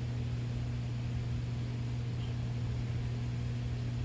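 Steady low hum over an even background hiss, unchanging throughout, like a fan or appliance running in the room.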